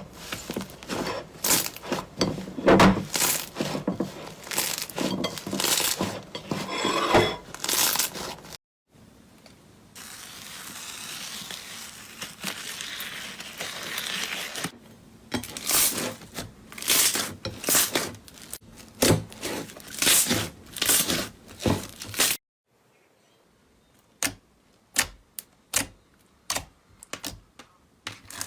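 Slime being squeezed and pulled by hand: dense crackling and popping, with a softer hiss for a few seconds in the middle. Cuts to new clips come about a third of the way through and again near the end, where a few sharp isolated pops sound over a quiet background.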